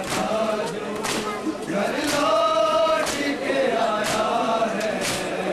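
Crowd of mourners chanting a lament in unison, with sharp chest-beating slaps of matam landing together roughly once a second.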